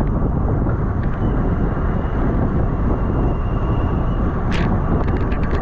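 Wind rushing over the microphone of a rider's camera at racing speed, a loud, steady rumble, with a faint thin whine and a few quick clicks near the end.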